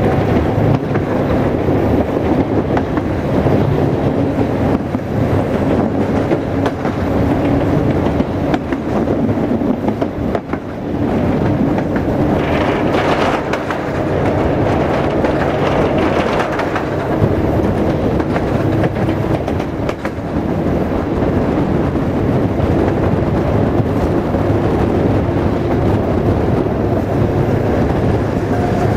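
Passenger train running, its wheels rumbling and clacking along the rails, heard through an open carriage window. About halfway through, a hissier rushing grows louder for a few seconds, then settles.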